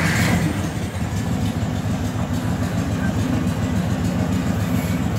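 Allis-Chalmers 180 tractor's gasoline engine running steadily with a quick low pulsing, moments after a cold start at about 4 degrees with no preheat, before oil pressure has come up.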